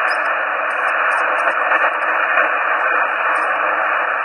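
Icom IC-706 transceiver's speaker giving a steady receiver hiss in upper-sideband mode while being tuned across the 27 MHz CB band, with no station heard. The local noise that read S7 has been cleared by a common mode choke on the end-fed antenna's feed line, and only plain hiss remains with the S-meter at zero.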